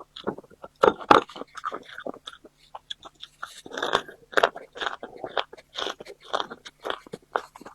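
Close-miked chewing: a person biting and crunching food in quick, irregular crunches with wet mouth sounds.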